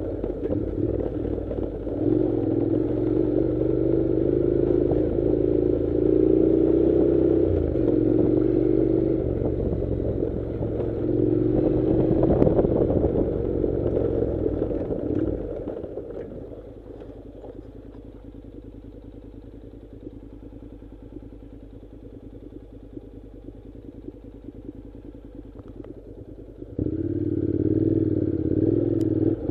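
Honda NC700X motorcycle's parallel-twin engine running under way on a gravel track, its note wavering up and down. About halfway through the engine sound falls to a much quieter low rumble for around ten seconds, then comes back loud suddenly near the end.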